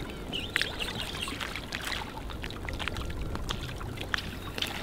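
Sea water splashing and trickling around small boats moving through light chop: many short irregular splashes over a steady low rumble.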